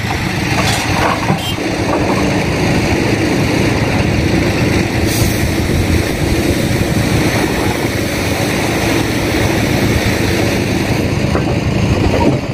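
Doosan crawler excavator's diesel engine running steadily and loudly as the boom raises its hydraulic breaker.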